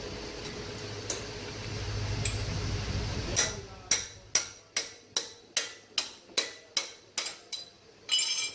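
A row of about a dozen sharp metallic taps, evenly spaced at a little over two a second, from metal tools on car brake parts, ending in a brief metallic ring.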